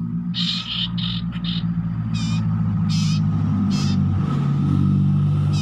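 Common iora (cipoh) giving short hoarse calls, a note every half second or so, over a loud low steady drone like a running engine that swells near the start and is the loudest sound.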